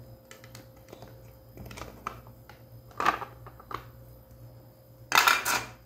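Small clicks and taps of plastic and metal parts being handled and pressed into place inside an opened massage gun's housing, with a louder short rasp about five seconds in.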